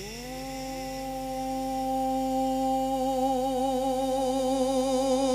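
A man's voice singing a naat into a microphone and holding one long note. It slides up into the note at the start, holds it steady, then wavers from about halfway and grows gradually louder.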